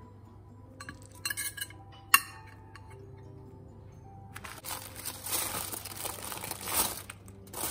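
A few light clinks against a china plate with one sharp clink about two seconds in, then from about halfway a run of crinkling and rustling as the aluminium foil and the clear roasting bag around the roasted quail are handled. Soft background music with held notes underneath.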